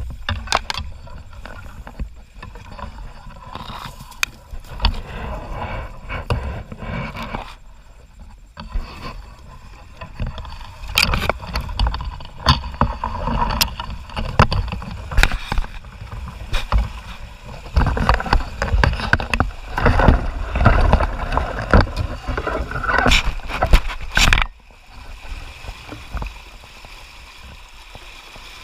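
Dry reeds and willow stems scraping, rustling and snapping against a plastic sit-on-top kayak and its mounted camera, in irregular crackling bursts that are loudest shortly before the end. It then quickly gives way to the quieter, steady rush of flowing river water.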